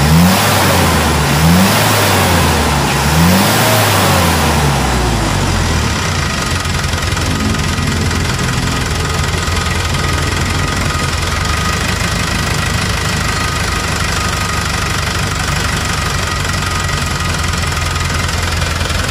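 Hino Dutro four-cylinder diesel truck engine revved in three quick blips over the first few seconds, then settling to a steady idle. It is being test-run after its injection pump plunger, nozzles and air/fuel settings were adjusted for more power.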